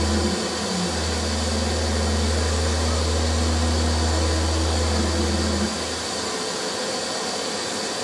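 A low, steady drone over a constant rushing hiss. The drone drops out near the end, leaving the hiss.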